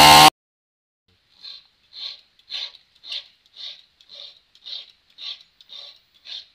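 Stihl 070 two-stroke chainsaw running at high revs, cut off abruptly just after the start. After about a second of silence come about ten soft, even scraping strokes, roughly two a second.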